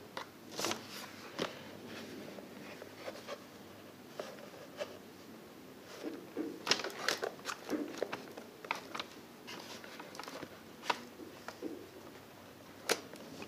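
Lincoln Viking 3350 welding helmet's hard plastic shell being handled and turned over: scattered light clicks, taps and rustles, with a sharper click near the end.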